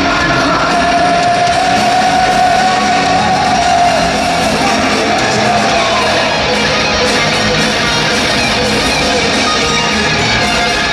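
A heavy metal band with a full symphony orchestra playing live: distorted electric guitars, drums and orchestra together, heard loud and dense from within the arena audience. A long held note bends up and down over the first few seconds.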